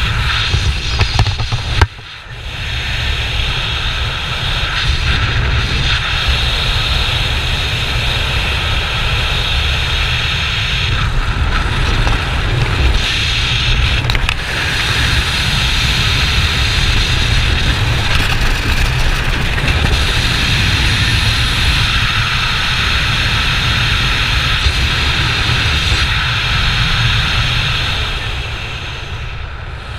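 Freefall wind rushing over a skydiver's helmet-mounted camera microphone, loud and steady. It eases over the last couple of seconds as the pilot chute is thrown to deploy the parachute.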